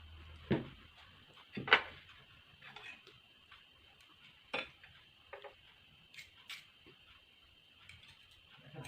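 Eating utensils clinking and knocking against a dish, a handful of separate short clicks with the loudest just under two seconds in, over a faint steady hiss.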